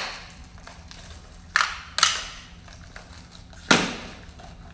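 Headphones being smashed: three sharp, loud cracking hits, two close together about a second and a half in and one more near the end.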